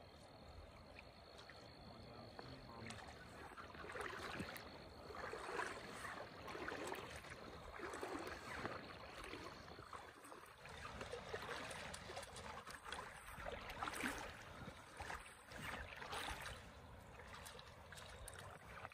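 River water splashing and sloshing in irregular bursts around anglers wading and landing a hooked trout.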